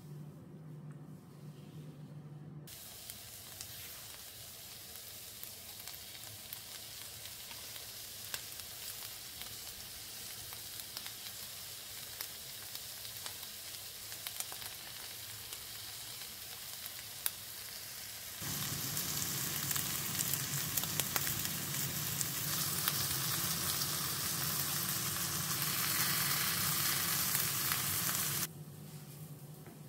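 Burger patties and red onion slices sizzling in a ridged grill pan under slices of melting cheese, with scattered small pops. The sizzle cuts in a few seconds in, grows louder about two-thirds of the way through, and cuts off shortly before the end.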